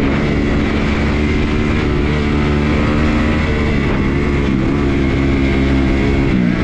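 Kawasaki KX250F's single-cylinder four-stroke engine running at steady riding revs, dipping briefly near the end before picking up again.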